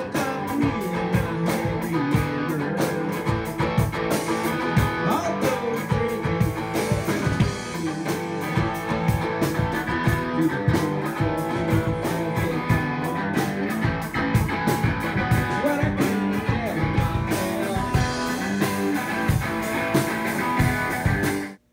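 Live rock music: a hollow-body electric guitar played over a steady beat, about four strokes a second. It cuts off suddenly near the end.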